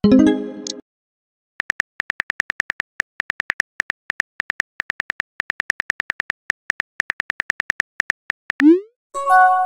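Phone keyboard key clicks of a text message being typed, several quick clicks a second for about seven seconds. A short message alert comes before them. A rising whoosh near the end marks a message being sent, followed by a chime.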